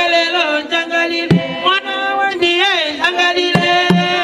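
Women singing a traditional Zambian ceremonial song, backed by traditional hand drums. A single drum stroke comes about a second in, and steady drumming starts near the end.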